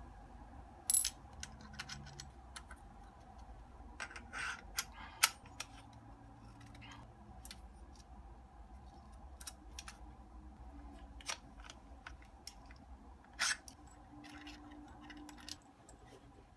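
Small metal camera-rig parts (a rod riser plate, rods, screws, hex keys) clicking and clinking as they are handled and fitted onto a camera, with sharp knocks about a second in, around five seconds and near thirteen seconds, and short scrapes between. A faint steady hum runs underneath.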